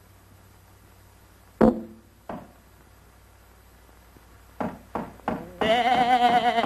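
Early sound-cartoon effects over faint soundtrack hiss: a hard thump about one and a half seconds in, a lighter knock just after it, a few short hits near the end, and then a loud wavering, bleat-like cartoon laugh.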